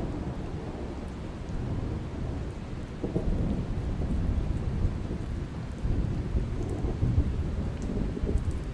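Heavy monsoon rain falling steadily, with a low rumble underneath that wavers in level.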